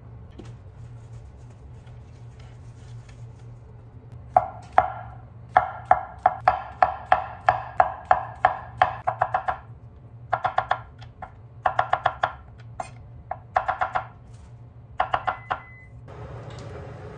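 Chef's knife slicing mushrooms on a thick wooden cutting board: runs of quick knocks on the board, about three or four a second, starting about four seconds in and broken by short pauses. A steady low hum underneath.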